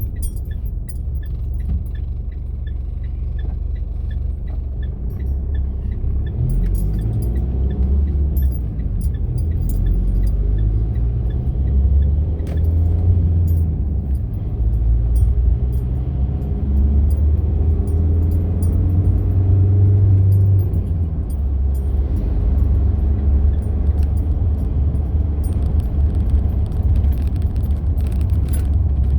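Vehicle driving along a road: a low rumble from the road and engine that swells and eases, with light rattling clicks throughout.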